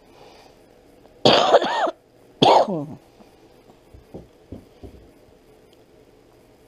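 A person coughing twice, loudly and a little over a second apart, followed by a few faint taps.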